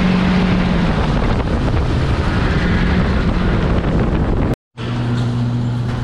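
Pickup truck driving on a muddy gravel road, heard from a camera mounted outside on the truck's flank: a low engine drone under heavy tyre and wind noise. It cuts off suddenly about four and a half seconds in, and a steadier low hum follows.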